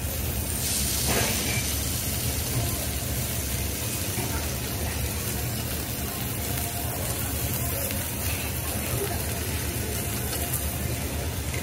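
Food sizzling steadily on a teppanyaki iron griddle, over a low constant hum, with a brief louder burst about a second in.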